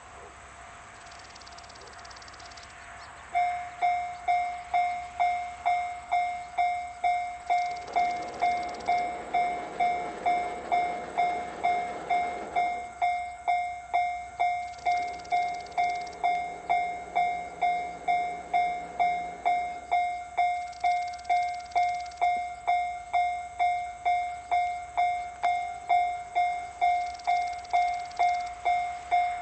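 Japanese railway level-crossing alarm starting suddenly about three seconds in: a repeated electronic bell tone, about two strikes a second, warning that a train is approaching. A rushing noise swells under it twice in the middle.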